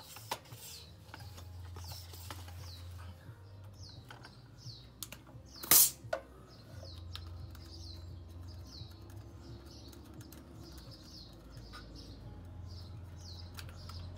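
A small bird chirping over and over in short, falling calls. Under it come light clicks and one loud, sharp knock about six seconds in as the scooter's rear wheel is handled and fitted.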